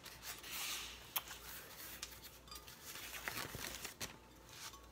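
Faint rustling of packaging and scattered small clicks and taps as the parts of a new blender are unpacked and handled.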